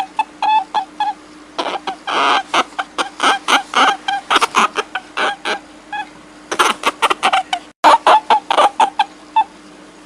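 Rapid runs of short, high-pitched animal cries, several a second, in bursts separated by short pauses, over a steady low hum. The sound cuts out for an instant about three quarters of the way through.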